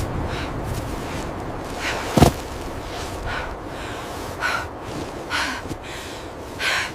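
A person breathing hard in short, sharp breaths about a second apart, over a low steady rumble, with one sharp crack about two seconds in.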